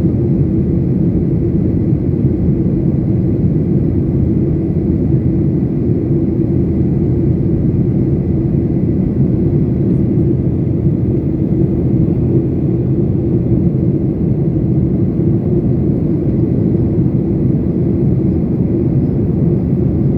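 Boeing 737 cabin noise: the jet engines and airflow making a steady low rumble with an even hum running through it, unchanging throughout.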